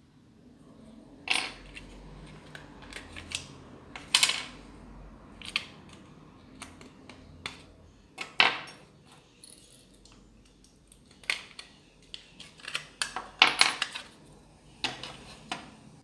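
Tweezers and a TV remote control being handled, giving irregular sharp clicks and light metallic clatter. The loudest snaps come about four, eight and thirteen seconds in.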